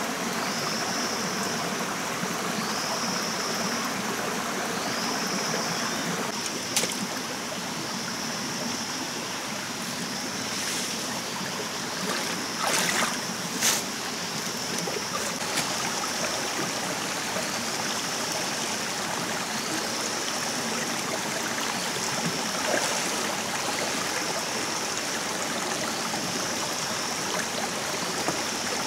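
Steady rush of a forest stream. Over it, a high buzz sounds in repeated stretches of about two seconds, and a few sharp knocks come about 7 s, 13 s and 23 s in.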